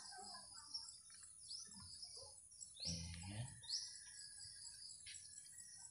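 Faint chirping of small birds, a string of short high chirps, over a steady high-pitched whine. About three seconds in comes a brief low hum, the loudest moment.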